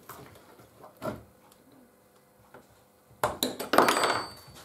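Metal tool clinking and scraping against a chainsaw's newly fitted clutch, a few faint clicks first, then a louder clatter of metal on metal about three seconds in.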